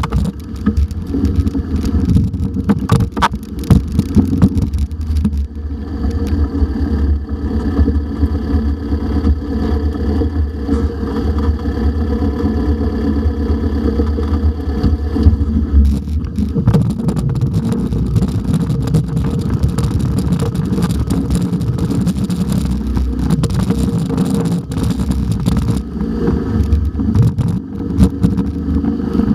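Dune buggy engine running under way over sand, with a heavy low rumble from the engine, wind and the ride. A few sharp knocks sound in the first few seconds, and the engine holds a steady note from about six to sixteen seconds in.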